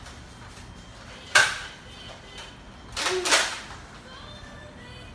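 Toy Nerf blaster shots: a sharp pop about a second and a half in, and a second, rougher pop about three seconds in.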